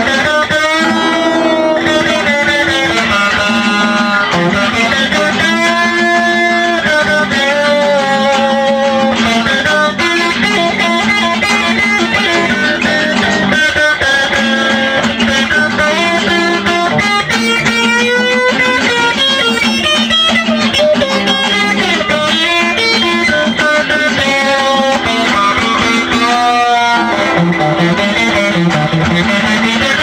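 Electric guitar playing an instrumental tune, with held notes that waver and slide in pitch as they are bent.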